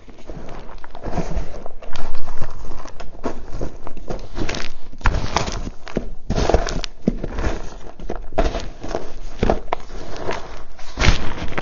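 Reformed gym chalk crushed and crumbled by hand in a plastic tub: irregular dry crunches with powdery crumbling between them, loudest about two seconds in.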